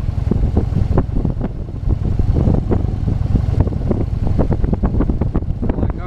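Heavy wind buffeting on the helmet microphone of a moving Harley-Davidson motorcycle, in rapid irregular gusts over the steady low rumble of its V-twin engine.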